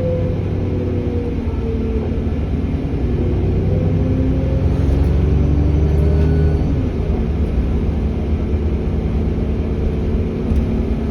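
Diesel bus engine running under load with its turbocharger whistling, gliding tones over a heavy rumble. The rumble builds and then drops away sharply about seven seconds in, as the engine comes off load.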